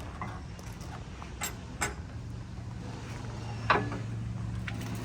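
A few sharp metallic clinks and knocks of hand tools on metal parts, one near the end ringing briefly, over a steady low hum.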